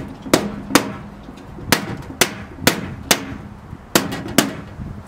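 Small body hammer tapping ripped aluminium on a camper's side panel back flat, about eight sharp taps roughly half a second apart.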